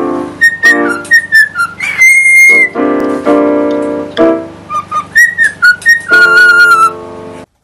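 Background music: a whistled melody in short phrases over keyboard chords, cutting off suddenly near the end.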